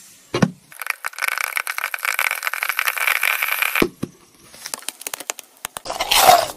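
A glass pan lid is set down with a knock, then popcorn kernels pop and crackle in hot oil under the lid for about three seconds as a dense run of quick ticks. A second knock comes near four seconds as the lid is handled, and a brief rustle of popped corn follows near the end.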